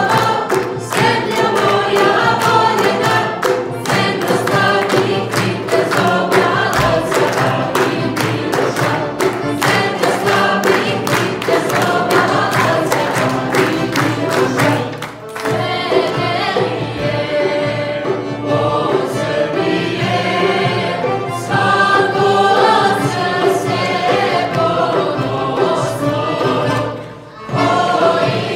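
Small vocal ensemble singing together, with steady rhythmic hand clapping through the first half. The singing breaks off briefly about halfway through and again near the end.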